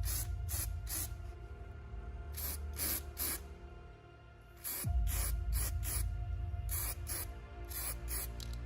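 Background music with an electronic beat: crisp hi-hat ticks about three a second over sustained tones, and a deep falling bass note that returns about five seconds in.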